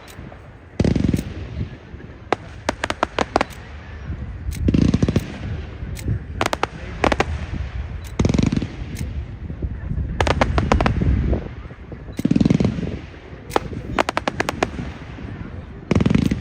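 Fireworks display: aerial shells bursting in deep booms about every two seconds, with rapid clusters of sharp crackling reports between them.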